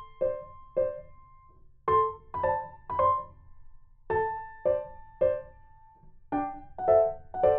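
Light background piano music: a simple tune of separate notes that ring and fade, played in short phrases.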